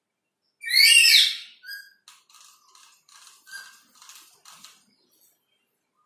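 Black-capped lory giving one loud, shrill screech with quick up-and-down pitch sweeps about half a second in. A run of much softer, short chattering notes follows, two or three a second, fading out near the end.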